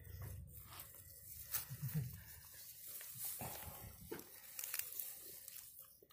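Rustling and crackling of grass and dry straw stems as hands push and part the vegetation close to the microphone, with scattered small snaps.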